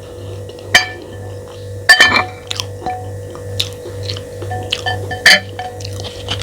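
Cutlery clinking against a plate a few times, the loudest about two seconds in, over steady background music.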